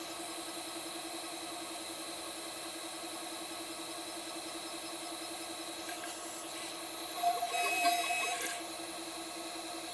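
CNC 6040 router's spindle running with a steady whine while its end mill cuts an aluminium plate. About seven seconds in a louder, noisier stretch lasts about a second and a half, then the steady whine returns.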